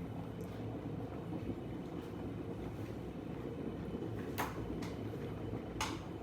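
A steady low rumble, with two short, sharp noises about four and a half and six seconds in.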